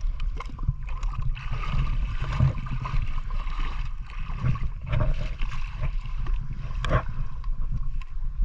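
Water sloshing and lapping around a small fishing boat over a low, steady rumble, with a few light knocks, the sharpest about seven seconds in.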